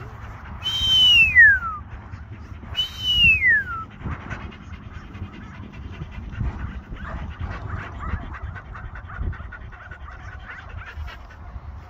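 Two long whistle commands to a working sheepdog, about two seconds apart, each held on a high note and then falling steeply. After them there is only faint wind noise.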